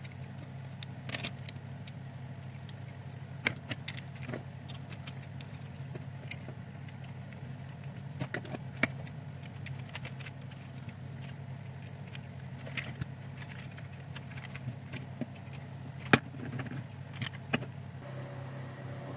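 Small plastic parts of a snap-together toy excavator kit clicking and rattling at irregular intervals as they are handled and fitted, over a steady low hum.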